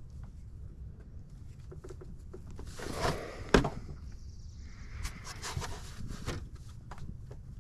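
Tools and parts being handled during a starter replacement: scattered clicks and rustling, with one sharp knock about three and a half seconds in.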